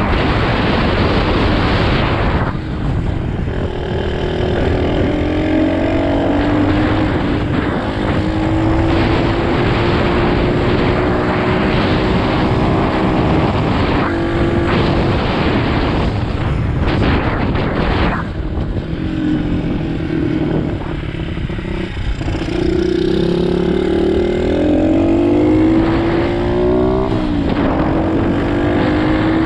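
SSR 125cc pit bike's small single-cylinder four-stroke engine running under way, its revs climbing and dropping again and again as the rider accelerates, shifts and eases off. There are stretches of loud wind rush on the microphone.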